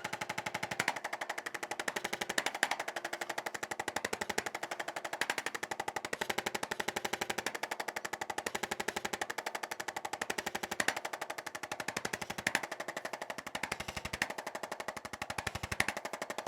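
Handheld chiropractic percussion instrument tapping rapidly and steadily on the back to loosen up the spine before the adjustment. The fuller low part of the taps comes and goes every second or two.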